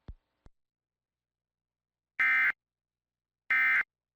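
Emergency Alert System end-of-message data bursts: two identical short, buzzy digital squawks a little over a second apart, the SAME "NNNN" code that closes the flood warning. Two faint clicks come right at the start.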